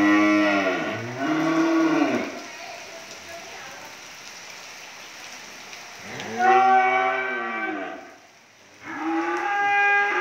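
Cattle mooing: a two-part moo at the start, a long moo about six seconds in, and another beginning near the end, each call rising and then falling in pitch.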